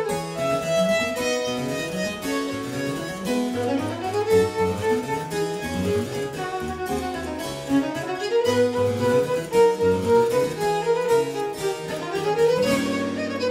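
Baroque violin and harpsichord playing a fast Presto in D minor together, the violin in quick scale runs that climb and fall over the harpsichord's plucked accompaniment.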